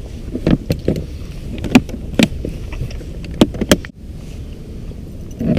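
Ice fishing gear being handled and set down: a string of sharp knocks and clicks, about seven, over a steady low background rumble.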